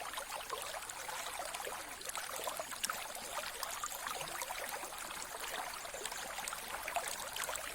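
Mountain river flowing: a steady rush of water, thick with small splashes and gurgles, without a deep rumble.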